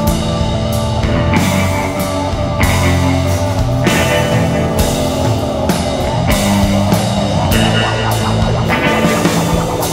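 Live psychedelic rock band playing: distorted electric guitar, bass and drums with repeated cymbal crashes over sustained low bass notes. A wavering, warbling mid-range line joins about four seconds in.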